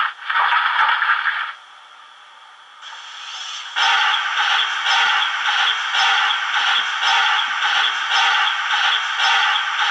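Sound decoder of a Märklin HO BR 01 model steam locomotive playing its coal-shoveling effect through the model's small speaker: a scraping sound that stops about a second and a half in, then after a short lull a steadily repeating scraping starts a little before four seconds in.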